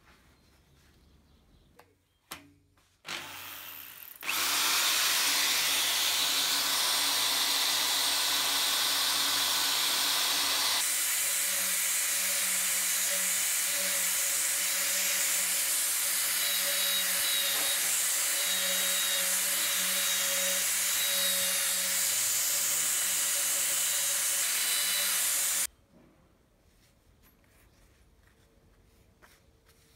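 Electric drill clamped in a bench vise, spinning a nonwoven abrasive wheel against a steel sickle blade to polish it. A few light clicks come first, then a steady run of about twenty seconds that starts about four seconds in and changes note around eleven seconds in. It stops suddenly near the end.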